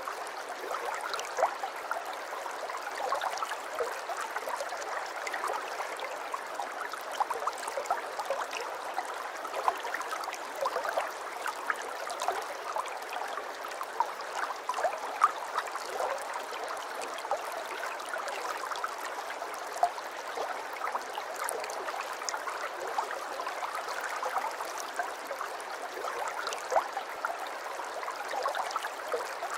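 Aquarium water trickling and gurgling steadily, with many small plinks and splashes scattered throughout.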